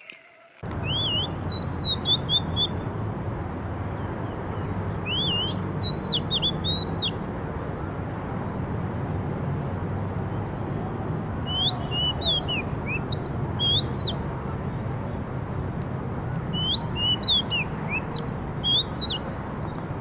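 Oriental magpie-robin singing: four short phrases of quick rising and falling notes, a few seconds apart, over a steady low background rumble.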